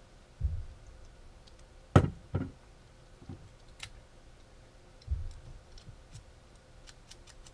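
Scattered clicks and light knocks from handling small 3D-printed plastic printer parts and a screwdriver on a wooden tabletop: dull thumps about half a second in and again about five seconds in, a sharp click about two seconds in that is the loudest, and a few small ticks near the end.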